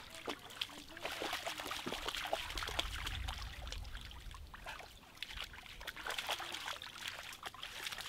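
A large dog wading through a shallow stream, water splashing and sloshing around its legs with many small splashes, over trickling water.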